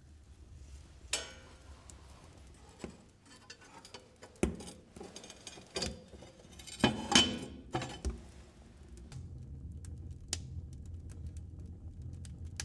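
Metal clanks, knocks and scrapes from a wood-burning stove's door and a poker as the fire is tended, about eight separate strikes with the loudest cluster about seven seconds in. Near the end only faint ticking from the burning wood remains.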